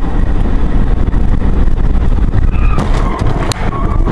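A car's dashcam recording while driving: a loud, steady rumble of engine and road. About two-thirds of the way in come a series of sharp knocks and bangs as the car's path goes astray.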